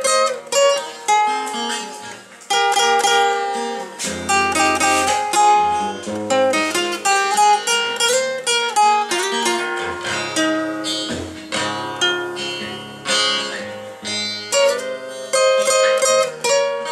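Guitar played solo: a steady run of picked notes and chords with bass notes underneath.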